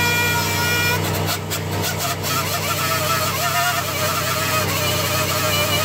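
Pneumatic dual-action (DA) sander running against the cut edges of a plastic car grille. The whine settles after start-up, then wavers lower from about a second in as the pad is pressed against the work.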